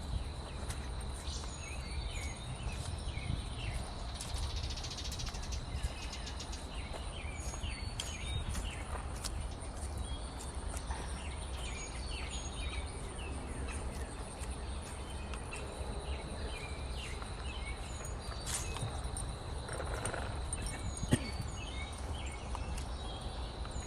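Outdoor ambience: a steady high insect drone with scattered short bird chirps over a constant low rumble. A single sharp click comes near the end.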